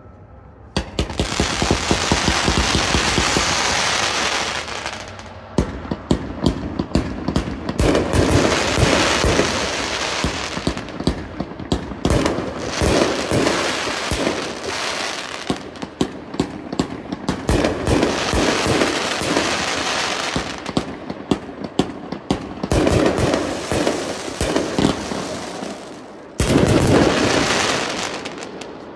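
A 40-shot 1.4G consumer firework cake (Aegis Shield) firing: a fast, nearly continuous run of launches and bursts starts about a second in, with a louder final volley near the end.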